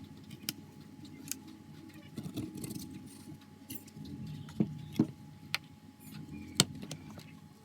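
Small sharp clicks and taps of tools and plastic parts over a low rubbing of handling as a Samsung A05 smartphone is taken apart by hand, about six clicks scattered through the stretch.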